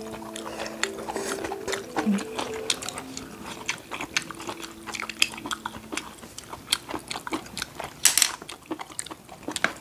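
Eating noises at a table: scattered clicks and taps of utensils and chewing, over soft background music that holds notes for the first six seconds and then stops. About eight seconds in there is a brief, louder rushing sound.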